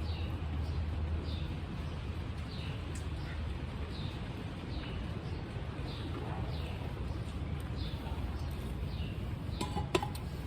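A songbird repeating a short, high, falling chirp over and over, a bit more than once a second, over a steady low rumble. There is one sharp click near the end.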